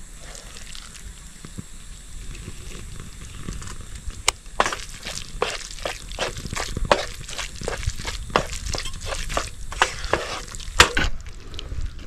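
Food sizzling in a frying pan on a portable gas stove while a wooden spatula stirs and scrapes through it. From about four seconds in, the spatula gives many quick scrapes and taps against the pan.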